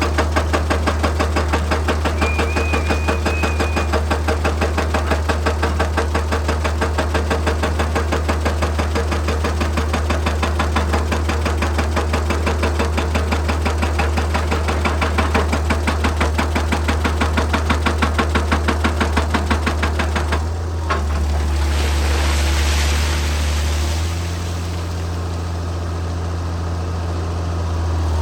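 Excavator-mounted hydraulic rock breaker hammering rock with rapid, evenly spaced blows over the steady drone of the diesel engine. About two-thirds of the way through, the hammering stops and the engine runs on alone, dropping a little in level a few seconds later.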